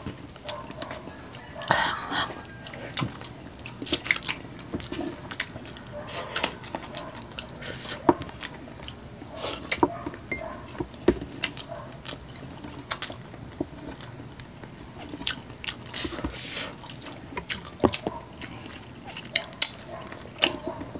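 Two people eating soft-braised chicken feet adobo by hand, close to the microphone: wet chewing and mouth sounds, with sharp smacking clicks coming irregularly several times a second.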